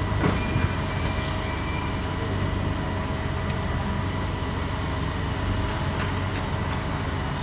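Boat motor running steadily: an even low hum with constant mechanical tones.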